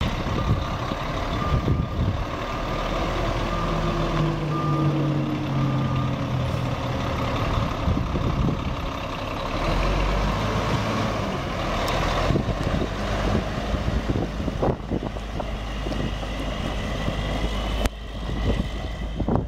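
Caterpillar C12 straight-six diesel engine of a Sterling AT9500 dump truck running as the truck drives, its pitch rising early on as it pulls away. A backup alarm beeps steadily from about a second and a half in until about six seconds.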